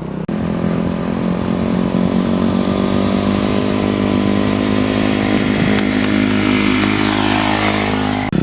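Dirt bike engine running steadily at low revs, its pitch holding nearly level, with a brief dropout just after the start.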